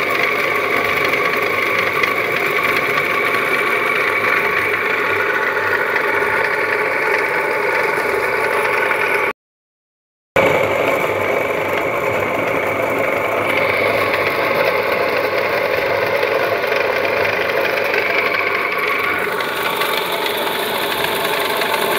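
Electric motor driving the crusher under a potato steaming column, running steadily with a constant whine and a rattle as steamed potatoes drop through the hopper. The sound cuts out completely for about a second midway.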